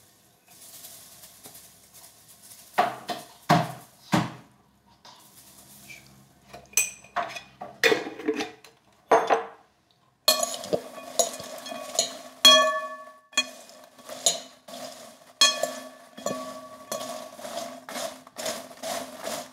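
Metal spoon stirring popcorn in a glass bowl: a few separate knocks and clinks at first, then from about halfway a quick, busy run of clinks with short rings as the spoon strikes the glass and rustles through the popped corn.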